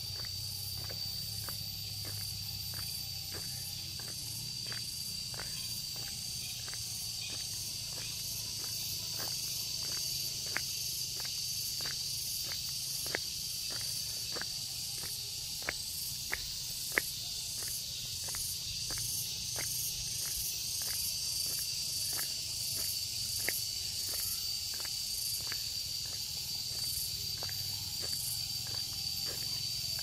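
A steady chorus of insects trilling, with one continuous high-pitched tone and a pulsing shimmer above it, over the walker's footsteps ticking about twice a second.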